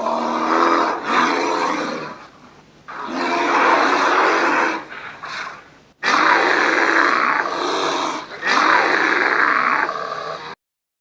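Quatran creature sound effect: a series of loud, rough roars and growls, each lasting one to two seconds with short breaks between them, stopping suddenly about ten and a half seconds in.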